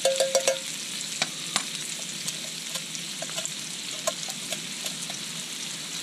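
Sausage, bacon, onions and garlic sizzling steadily in hot grease in a small metal camp pan, with scattered clicks and scrapes of a utensil against the metal as it is stirred.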